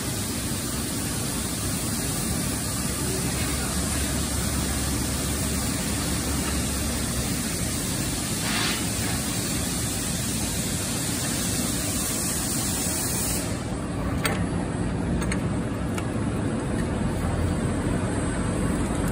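Steady, hissy machinery noise from a spring production line, where a powered roller conveyor carries steel bars through an induction heater. Partway through, the sound changes to a lower machine running with a few sharp clicks, as a coiling machine winds a red-hot steel bar into a large spring.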